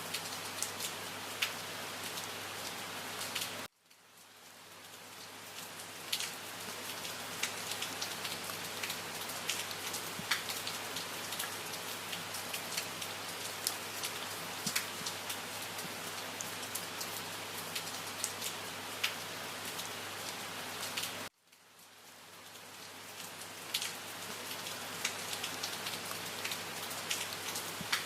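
Steady rain, with many single drops tapping close by. The sound cuts out suddenly twice, about four seconds in and again about four fifths of the way through, and swells back up over a couple of seconds each time.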